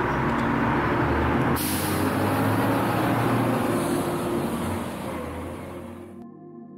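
Road traffic: a large vehicle's engine running with a steady hum, and a hiss that comes in suddenly about one and a half seconds in; everything fades out near the end.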